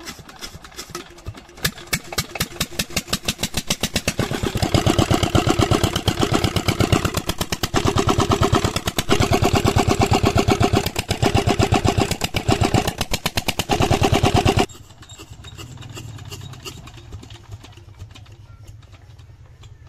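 Old Petter single-cylinder diesel engine being cold-started with a flame held at its air intake: rhythmic firing beats build up over the first few seconds as it catches, then it runs loud and even. About three-quarters through the sound suddenly drops to a much quieter, lower running beat.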